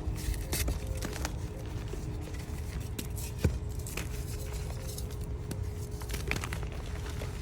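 Reformed gym chalk crunching close to the microphone: irregular crisp crackles and snaps, the loudest about three and a half seconds in, over a faint steady hum.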